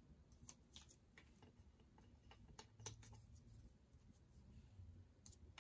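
Near silence with faint, scattered ticks and light taps of paper stickers being handled and pressed down onto a paper tag by hand.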